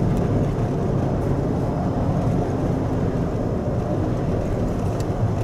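Steady low rumble of a 4x4 vehicle driving: engine and road noise with no distinct events.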